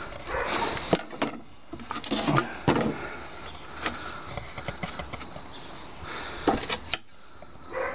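Sharp wooden knocks and clatter as a freshly sawn block of wood is handled and set down on a plank table, several strikes a second or so apart, over a faint steady whine.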